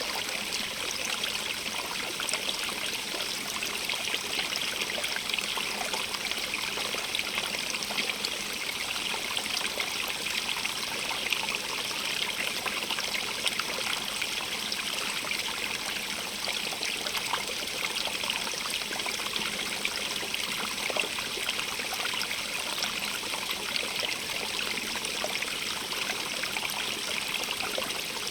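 A small stream running and trickling over stones, a steady, even rush of water with fine splashing and babbling throughout.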